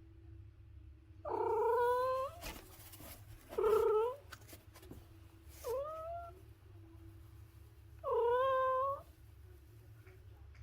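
A domestic cat meowing four times, each meow under a second long with the third fainter and rising in pitch. A faint steady hum runs underneath.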